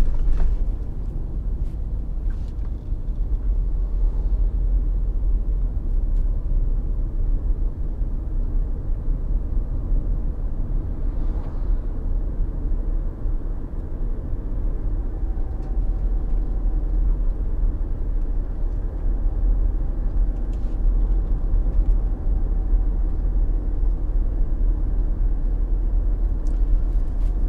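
A road vehicle being driven: a steady low rumble of engine and tyre noise that holds unchanged throughout.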